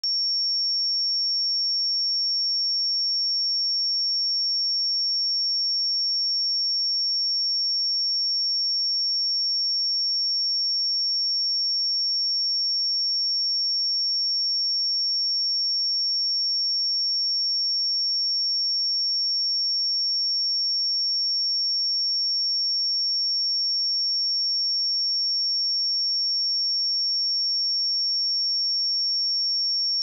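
A pure 5493 Hz sine-wave test tone, one steady high-pitched whistle held at a constant level without a break.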